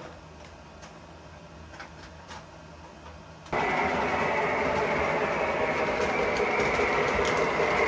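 Lionel O gauge model train running on three-rail track, a steady rumble that starts suddenly a little over three seconds in and grows louder as the train comes closer. Before it, only faint room noise with a few light clicks.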